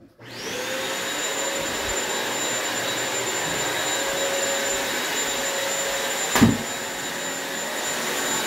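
Upright floor vacuum switched on, its motor spinning up within half a second to a steady whine, with one sharp knock about six seconds in.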